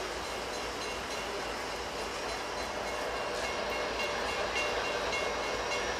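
Steady hum and hiss of a commuter rail train on the tracks, with a faint high whine.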